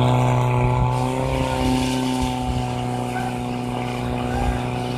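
Portable fire pump engine running steadily at high revs, driving water through the hoses to the nozzles.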